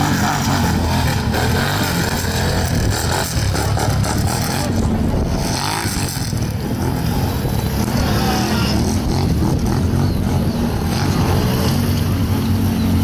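Four-wheeler ATV engine running hard and revving under load as the quad climbs over rocks and through mud on an off-road course.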